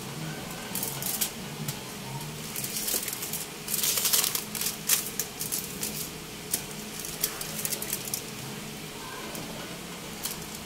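Aluminium foil crinkling and rustling in irregular crackles as it is pressed down and peeled back over rolled-out dough, loudest in a burst about four seconds in.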